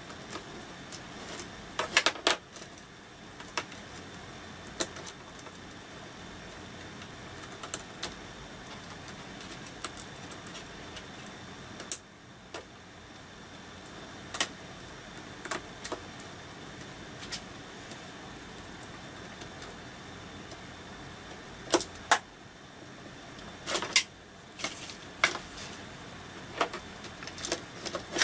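Scattered sharp clicks and taps of a small screwdriver and the plastic housing of a metal detector's control box being handled while small screws are driven in, over a steady faint hiss.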